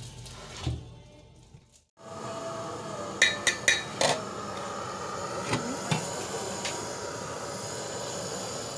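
A steel pot and a glass bowl knocking together as rice is tipped across: four quick, ringing clanks about three to four seconds in, then two softer knocks, over a steady low hiss.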